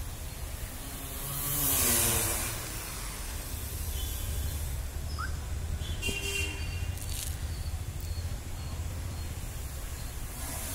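Large multirotor drone on T-Motor Anti-Gravity 4006 motors in flight, a steady low propeller hum. About two seconds in it swells into a louder rush with a falling pitch as it passes.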